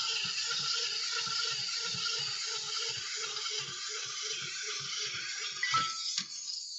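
Clockwork of a wind-up Android figurine walking: a steady whir with a regular tick about three times a second, stopping about six seconds in.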